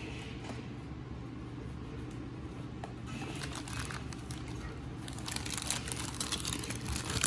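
Clear plastic bags holding plastic model-kit parts trees crinkling as hands handle them. The crinkling is light at first and grows busier and louder from about halfway through.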